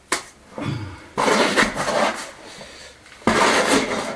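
Lime mortar being scooped and scraped out of a plastic bucket, in two rough scraping bursts after a sharp click at the start.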